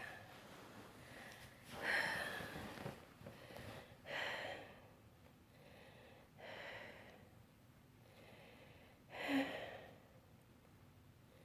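A woman with cystic fibrosis breathing heavily, with a loud, breathy breath about every two seconds.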